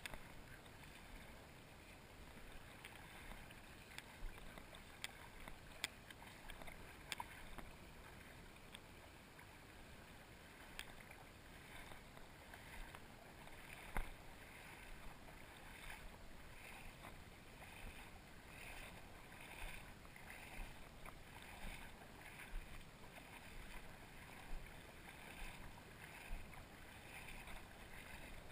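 Faint lapping of small ripples in shallow water close to the microphone, with scattered soft ticks and little splashes, one a little sharper about halfway through.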